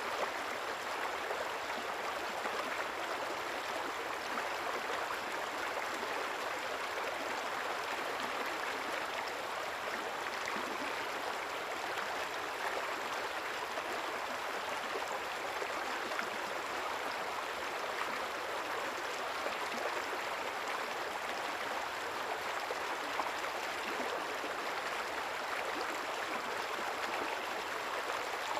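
River water flowing over stones, a steady rushing and babbling.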